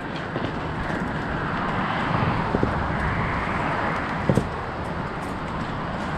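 Mountain bike rolling along a dirt trail: steady tyre and wind noise on the action-camera microphone, with two sharp knocks from bumps about two and a half and four seconds in.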